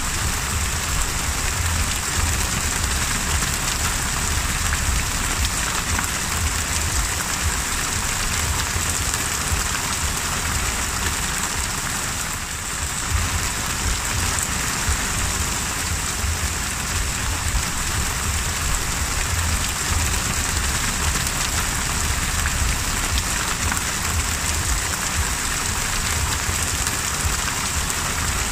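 Heavy rain pouring onto the open sea, a steady dense hiss with a low rumble underneath, dipping slightly for a moment about twelve seconds in.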